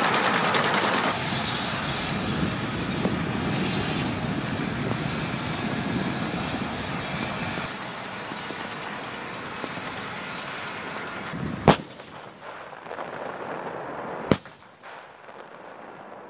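M1 Abrams tank driving past, its engine and running gear a heavy steady rumble that fades away, then two sharp gunshots about two and a half seconds apart, the loudest sounds.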